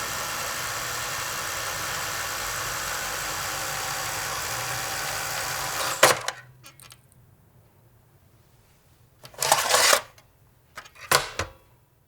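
Solidex Model 829 Beta tape rewinder whirring steadily as it rewinds, then stopping with a sharp click about six seconds in as the tape is fully rewound and the rewinder opens automatically. About three seconds later the Beta cassette is pulled out, and near the end the rewinder is shut with a few clicks.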